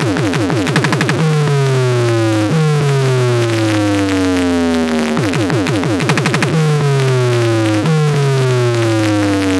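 Electronic synthesizer sound effect: a multi-tone pitch sweeps steadily downward, then breaks into a quick burst of fast warbling chirps, repeating about every 1.3 s.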